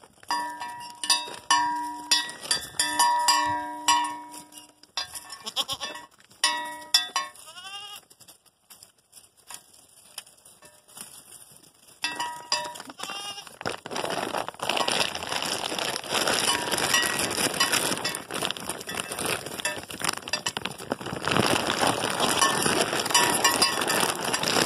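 A goat bell clanking over and over as the goats move, with a short goat bleat about eight seconds in. From about twelve seconds on, dense rustling and scraping close to the microphone as the goats push and nose around it.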